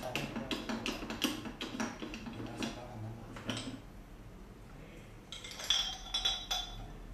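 Metal parts of a meat grinder's head being handled and taken apart: a run of short knocks and scrapes, then several ringing metal-on-metal clinks near the end.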